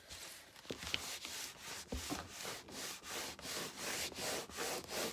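Paper rubbing and rustling in repeated strokes, about two to three a second, as wrinkled Lego instruction booklets are handled and smoothed.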